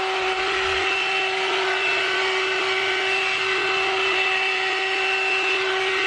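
One-step hot air brush (hair dryer and styler) running steadily: a constant motor whine of unchanging pitch over the rush of blown air.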